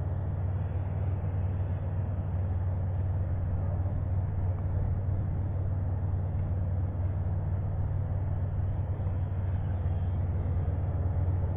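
Sky Viper S1700 toy quadcopter in flight, its motors and propellers giving a steady low hum with a noisy edge and no change in pitch.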